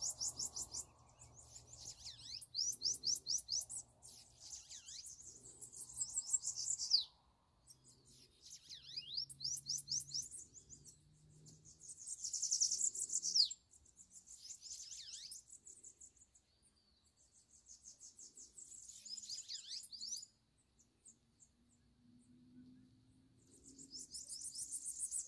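A songbird singing in repeated high-pitched phrases, each a rapid trill of notes that ends in a quick downward sweep, with short pauses between phrases.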